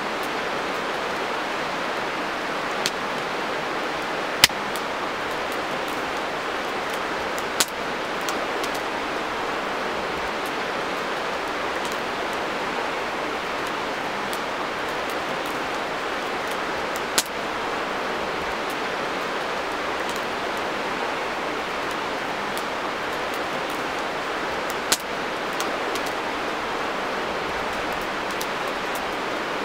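Wood campfire burning, with a few sharp pops and crackles from the logs, the loudest about four seconds in, over a steady rushing hiss.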